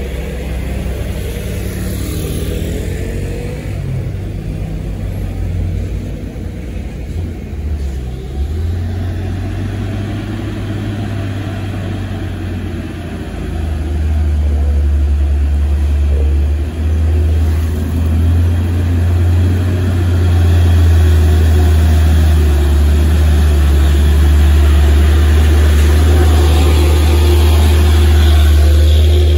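Heavy diesel truck engines running in a low steady hum. About halfway through, a truck engine grows louder as the truck comes up and drives past close by, and it stays loud to the end.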